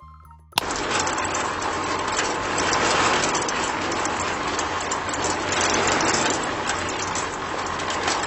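A small motor running steadily with a dense whirring noise over a low hum, cutting in abruptly about half a second in.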